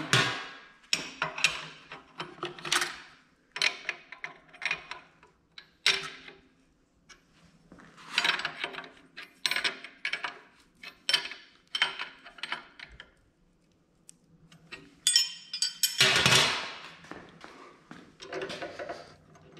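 Steel tools and drill-press vise hardware clinking and clanking as a wrench tightens the vise's hold-down bolts: an irregular series of sharp metal knocks with short ringing, the loudest cluster about three-quarters of the way through.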